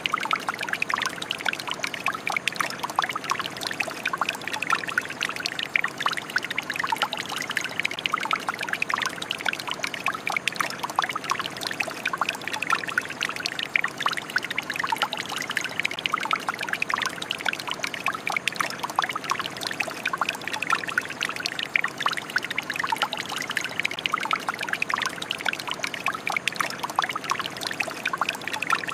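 Shower water running steadily, a dense spatter of falling drops splashing without pause.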